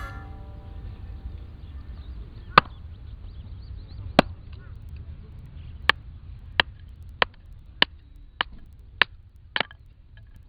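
A series of nine sharp chopping knocks: two spaced well apart, then seven in a steady run about every 0.6 s before they stop.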